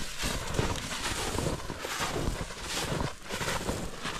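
Footsteps through deep snow at a walking pace, a pulse about twice a second, with wind noise on the microphone.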